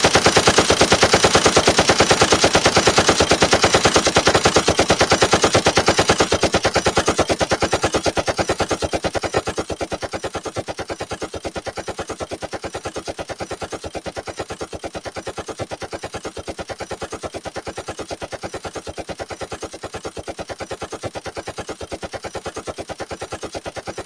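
Machine gun firing one long unbroken stream of automatic fire. It grows quieter over the first ten seconds or so, then holds at a steady level.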